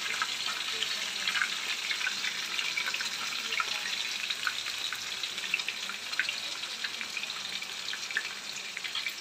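Battered chicken pakodas deep-frying in hot oil in an iron kadai: a steady sizzle with dense, fine crackling pops.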